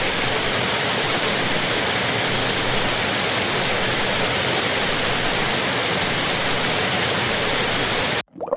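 Steady rush of flood water, an even roar with no breaks that cuts off suddenly near the end.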